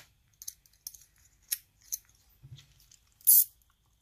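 Small metal-on-metal ticks and scrapes from a lock pick and tension tool working a Sparrows Revolver practice lock, a handful of light clicks spaced roughly half a second apart. A louder, sharper metallic scrape comes about three seconds in.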